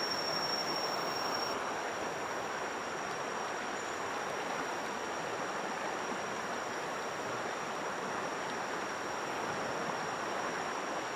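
Steady rush of flowing river water, with a faint, thin, high steady whine above it.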